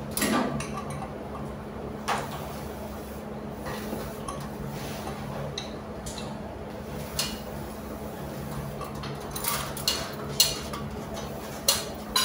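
Light metallic clinks and taps, scattered and becoming more frequent near the end, over a steady low hum.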